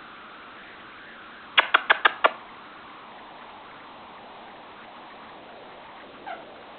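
Indian ringneck parakeet making its odd clicking noise: a quick run of five sharp clicks about a second and a half in, then a faint short falling note near the end.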